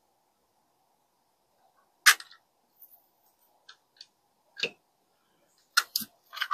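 Parts of a rotating jewelry organizer clicking and knocking together as they are handled during assembly: a sharp click about two seconds in, a few faint ticks, a duller knock, then two more clicks near the end.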